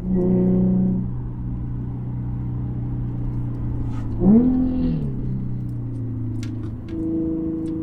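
Infiniti G37S's VQ37 V6 running as the car is driven, with a quick rev blip that rises and falls about four seconds in, then settling into a steady, slightly higher drone near the end.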